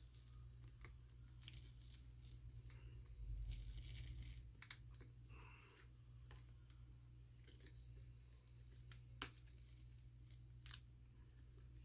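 Faint crackling and tearing of strong double-sided adhesive as a MacBook battery is pried loose from the case, with scattered sharp clicks and a slightly louder stretch a few seconds in.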